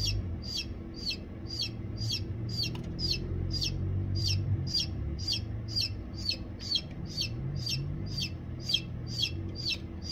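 Newly hatched chicken chick peeping steadily, about two peeps a second, each peep falling in pitch, over a low steady hum.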